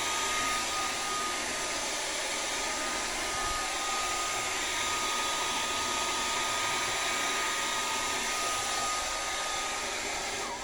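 Handheld blow dryer running steadily, blowing hot air with a steady high whine that fades near the end.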